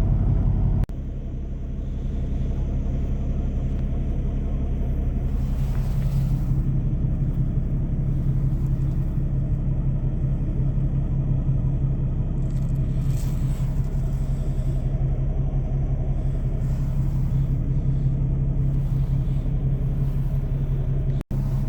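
Semi truck's engine running steadily, a low rumble with a constant hum.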